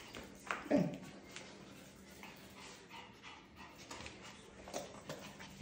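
A dog gives one short call that falls in pitch, under a second in, with scattered light clicks around it.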